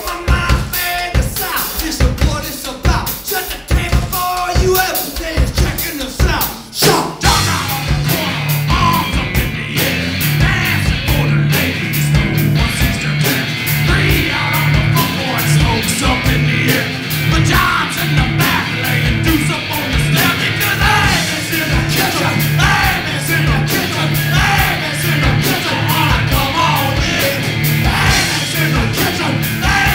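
A blues-rock duo playing live on electric guitar and drum kit, with singing. It opens with drums and harmonica. About seven seconds in, the full band comes in on a driving, repeating low guitar riff.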